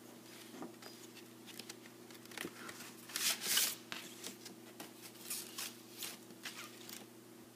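Vinyl LP being slid out of its cardboard album jacket in its paper inner sleeve: a string of short papery rustles and scrapes, the loudest about three seconds in.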